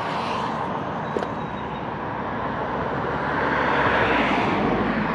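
Steady road-traffic noise with a vehicle passing, swelling to its loudest about four seconds in. A single small click comes about a second in.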